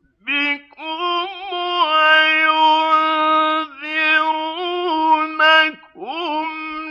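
Male Quran reciter chanting in the melodic Egyptian style. A short note is followed by a long held, ornamented line with small pitch turns, a brief break, and then a new phrase that glides upward near the end.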